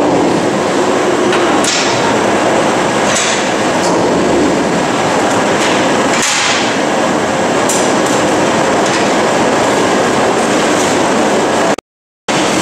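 Steady metallic rumble of a loaded stainless-steel basket of cans rolling on the rollers of a transfer trolley, with a sharp clack about every second and a half. The sound drops out briefly near the end.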